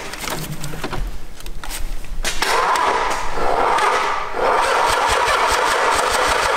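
Starter cranking the freshly resealed Nissan 300ZX's VG30DE V6, turning it over in quick even pulses without it catching, with a short break about two seconds in.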